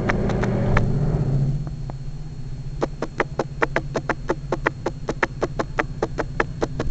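Diesel switcher locomotive running with a steady low hum, hauling a hot-metal train of torpedo cars. About three seconds in, a rapid, even clicking starts up, about five clicks a second, and carries on over the hum.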